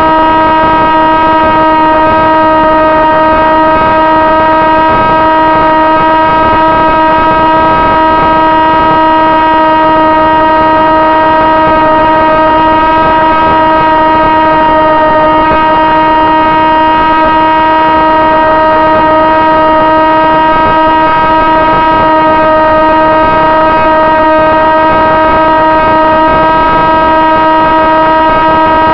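Sonic Modell AR Wing's electric motor and propeller whining loudly at a steady, unchanging pitch, heard through the onboard camera over a rush of air noise: the wing is cruising at constant throttle.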